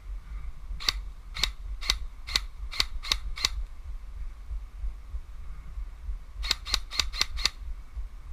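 Airsoft gun firing single shots: seven sharp cracks about half a second apart, then after a pause of about three seconds a quicker string of five.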